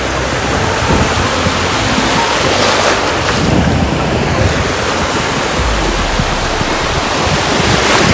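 Ocean surf washing in over shallow water in a steady rush, with wind buffeting the microphone, strongest a little past halfway.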